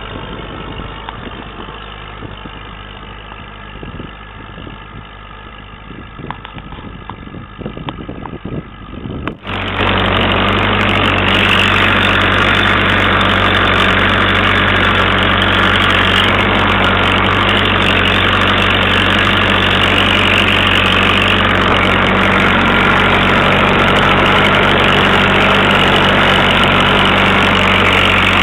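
Massey Ferguson 65 tractor engine running while ploughing. About nine seconds in, the sound jumps abruptly to a louder, steady engine note that holds to the end.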